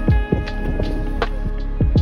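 Background pop music with a steady beat: a deep kick drum about once a second under sustained instrumental chords and light percussion ticks.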